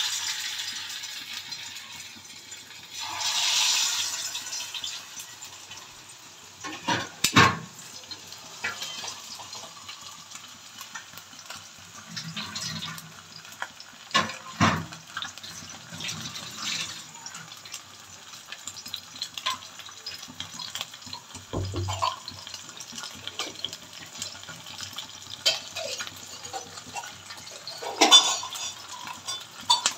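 Hot oil sizzling as masala-coated whole Indian mackerel (bangda) are laid into the pan and shallow-fried: loud hissing surges as fish go in at the start and again about three seconds in, then a steady sizzle with a few sharp knocks against the pan, and another loud hiss near the end.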